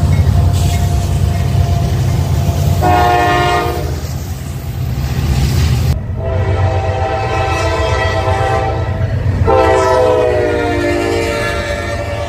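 Diesel freight locomotives going by close with a steady low engine rumble, and multi-note locomotive horn blasts: a short one about three seconds in, a long one from about six seconds, and another near the end whose pitch drops as it passes.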